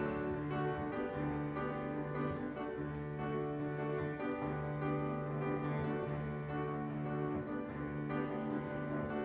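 Live chamber music from piano, cello and violin, with the cello sustaining long low notes that change every second or so under the melody.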